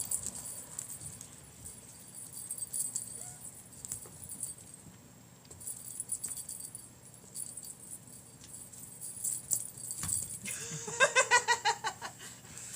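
Cat toy rattling and jingling in short, irregular bursts while a kitten plays with it. Near the end a loud, rapidly pulsing pitched sound cuts in for about a second and a half.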